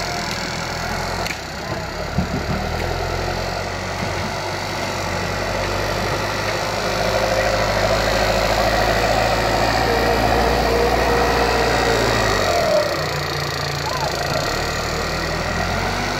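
Heavy diesel engine of an earthmoving machine running steadily, with a few sharp knocks about two seconds in; the low engine note falls away about three quarters of the way through.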